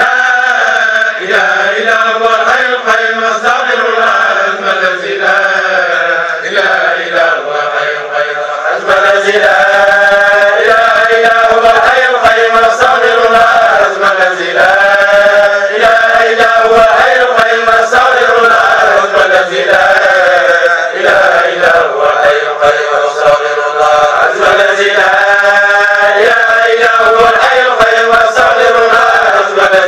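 Men's voices chanting together without pause in a melodic Sufi dhikr. The chanting gets louder about nine seconds in.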